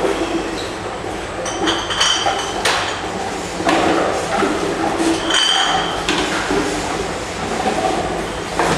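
Glass bottles clinking and knocking as they are fed one at a time into a reverse vending machine for bottle deposits: about six sharp knocks at irregular intervals, several with a ringing glassy tone, over steady background noise.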